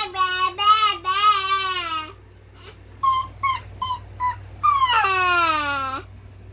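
A young child's long, high-pitched wail with a wavering pitch for about two seconds, then a few short squeaks, then a wail that slides down in pitch near the end.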